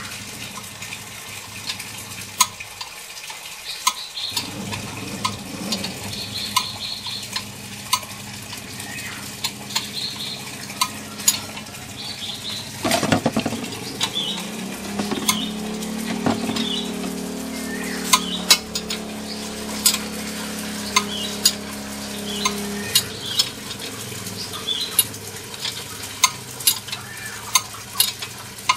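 Metal hand tools clinking and tapping against a car's front wheel hub and brake parts: many sharp, separate clicks over a steady hiss. About halfway through there is a louder rustle, then a low steady hum for several seconds.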